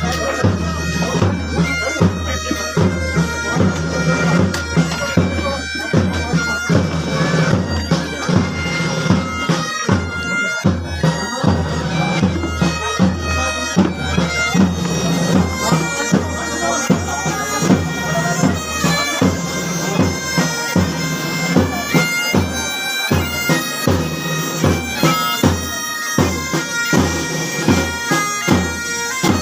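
Bagpipes playing a slow tune over their steady drones, with a regular drum beat: pipe-band music.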